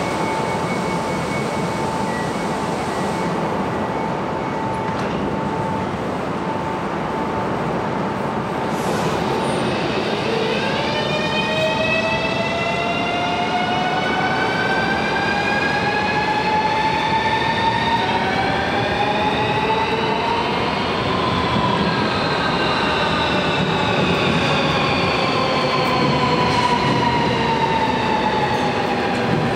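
Electric multiple-unit train (a Lastochka, Siemens Desiro RUS) pulling out of the station. Its traction motors whine in several tones that rise in pitch together from about a third of the way in, then some tones fall away in the last third, over a steady rumble of the train and station.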